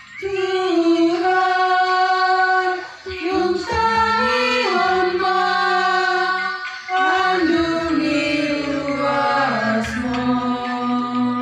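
A young woman singing a church psalm through a handheld microphone, in long held notes that move up and down by steps, over a low sustained accompanying tone.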